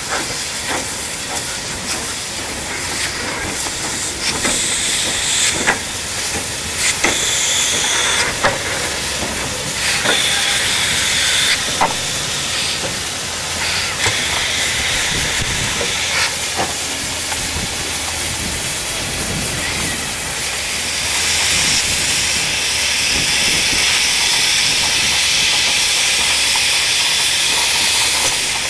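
Victorian Railways K-class 2-8-0 steam locomotive moving slowly, hissing steam, with irregular sharp clanks from its running gear in the first half. About 21 seconds in a louder, steady hiss sets in as steam blows from its open cylinder drain cocks.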